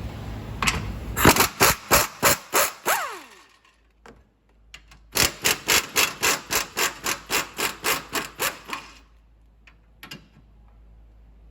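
Hand ratchet wrench worked back and forth in two runs of quick, even strokes, about three a second, on a bolt in the engine bay.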